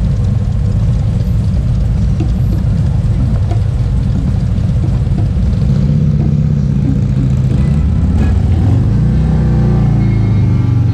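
Harley-Davidson touring motorcycle's V-twin engine running at low road speed, heard from on the bike. Its pitch rises twice, about six and nine seconds in, as the rider opens the throttle.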